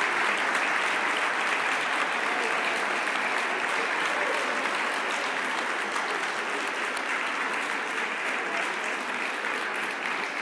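Audience applauding steadily, the clapping easing off a little near the end.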